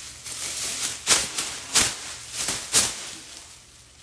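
A plastic bag being handled, rustling and crinkling, with three sharp loud crinkles about a second apart that die away near the end.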